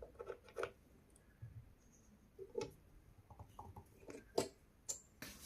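Faint, scattered clicks and metal ticks as a test bar is clamped in the mini lathe's chuck.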